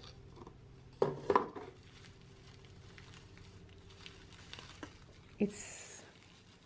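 Hands rustling shredded paper filler and crinkling bubble wrap while unpacking a small cardboard box, soft handling noise with louder moments about a second in and again about five and a half seconds in.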